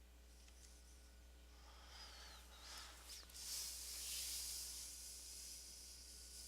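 A steady hiss begins about three and a half seconds in and runs until near the end, over a constant low electrical hum.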